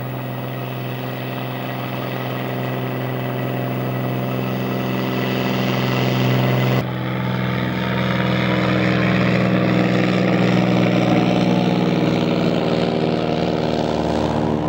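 Small single-engine propeller plane flying low overhead: a steady engine-and-propeller drone that grows louder. About seven seconds in it jumps abruptly, as at an edit, and then continues with some of its higher tones slowly falling in pitch.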